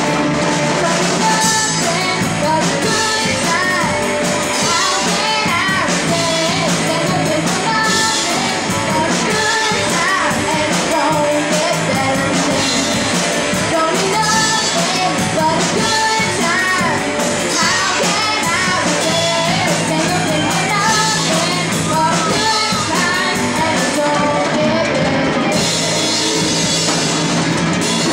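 Live rock band playing: singing over a drum kit with crashing cymbals and guitar, continuing without a break.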